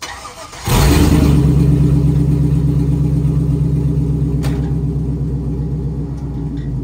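A 6.0-litre LS V8 engine in a pickup truck is cranked briefly, catches with a sudden loud start and runs at a steady idle. A single sharp click is heard about four and a half seconds in.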